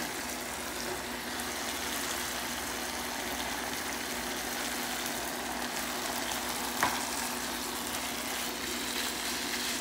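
Tomato-and-pepper sofrito sizzling steadily in a frying pan as raw ground beef goes in and is pushed about with a spatula, with one light click about two-thirds of the way through.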